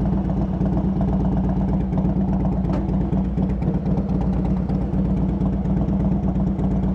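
2006 Harley-Davidson Softail Deluxe's Twin Cam V-twin engine idling steadily.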